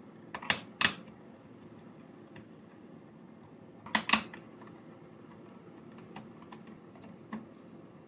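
Sharp clicks and taps of a Phillips screwdriver working the screws of a laptop's plastic bottom case: two close pairs about a second in and about four seconds in, with fainter ticks between and one near the end.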